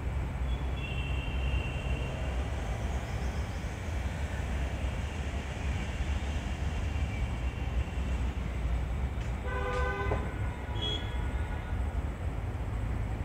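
Steady low background rumble, with a short horn toot about ten seconds in and a brief high note just after it. Faint thin high tones sound near the start.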